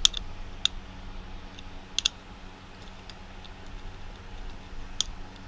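A few scattered sharp metallic clicks as a small tool slips and taps against a screw inside an opened hard drive.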